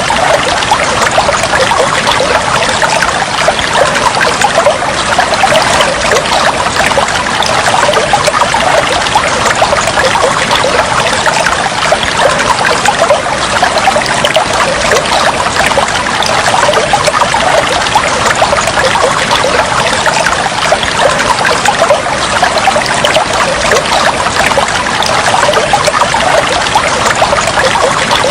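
Flowing, trickling water, steady and unbroken.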